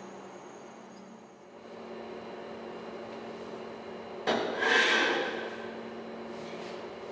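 A sudden hissing rush about four seconds in, fading over about a second and a half, over a steady low room hum.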